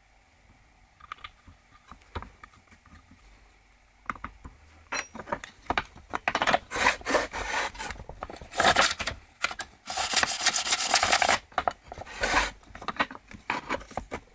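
Metal parts of a 1964 Homelite XL-100 saw's starter and fan housing being handled and scraped while it is taken apart: a few light clicks at first, then about four seconds in, irregular rubbing and scraping that grows dense and loud.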